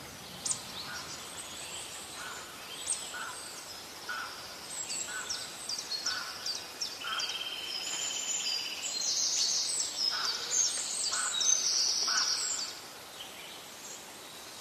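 Several small wild birds chirping, whistling and trilling, with a short lower note repeated now and then. The calls are thickest a little past the middle and thin out near the end.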